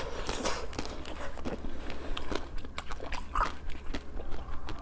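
Close-miked chewing and mouth sounds from eating a chocolate-shelled dessert with a soft pink filling: a steady stream of small sticky clicks and smacks as it is chewed.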